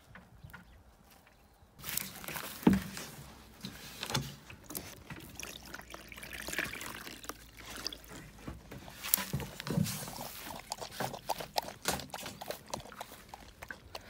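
Water pouring and splashing into a plastic tub, with a border collie lapping it up and irregular knocks against the tub; it starts about two seconds in.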